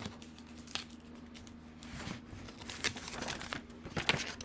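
Clear plastic lamination pouch crinkling and rustling as it is handled, with scattered crackles that get busier from about halfway through.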